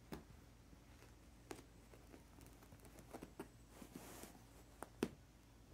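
Faint scattered taps and soft scratches of a cat's paws and claws on a rug as it rolls and plays. There is a short scratch about four seconds in and a sharper tap near the end.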